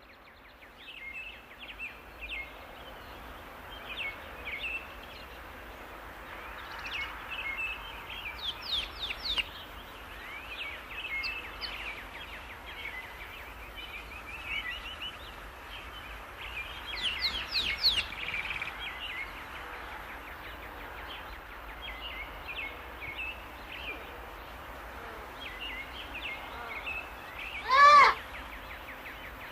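Many small birds chirping and trilling over a steady hiss of rain. Near the end comes one brief, much louder call, the loudest sound.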